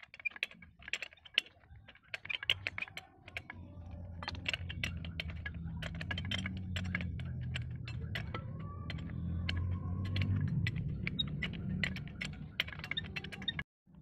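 Metal clicks and clinks of a box wrench working the bolts of a brush cutter's centrifugal clutch shoes as new clutch linings are fitted. A low steady hum runs underneath from about four seconds in.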